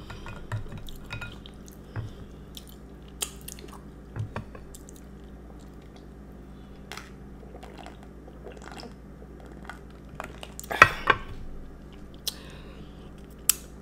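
Close-up eating sounds: wet chewing and small clicks as slushy ice milk is scooped by hand from a glass bowl and eaten, then drunk from the bowl. A short, louder knock and clatter about eleven seconds in.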